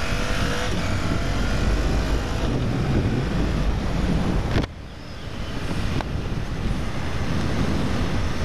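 Motorcycle riding at road speed, heard from a helmet camera: engine drone under heavy wind rush on the microphone. The engine revs up near the start, and the sound breaks off abruptly a little past halfway before carrying on.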